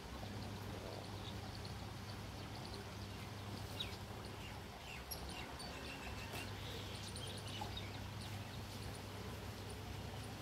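Outdoor ambience: small birds chirping now and then in short high notes over a steady low hum.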